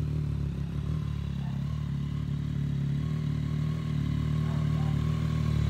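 Triumph Street Triple RS's inline three-cylinder engine idling steadily through an aftermarket Spark exhaust, the note swelling slightly near the end.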